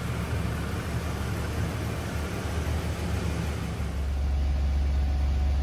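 A vehicle engine idling with a steady low rumble, turning to a deeper, steadier hum about four seconds in.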